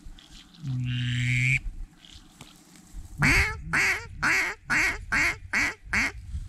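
Mallard hen quacking sequence, most likely blown on a hunter's duck call to bring circling ducks back: about eight loud quacks, roughly two a second. A shorter steady note sounds about a second in.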